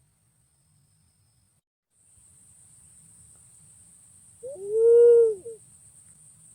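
Punai pink (walik ungu) pigeon giving one long cooing call that rises and then falls in pitch, about four and a half seconds in, over a faint hiss after a silent gap at the start.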